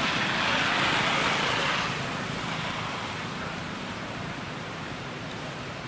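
Steady outdoor background hiss, louder for the first two seconds and then settling a little lower.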